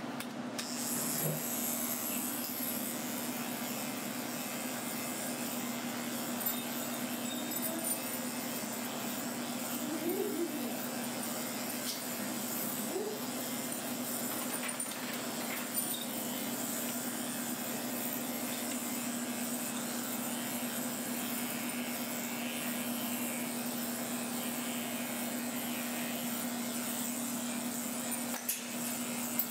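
Corded electric dog grooming clippers running with a steady hum, shaving a schnauzer's coat short.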